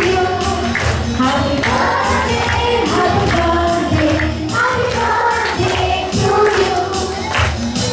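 A group of children singing a song together over a steady percussive beat.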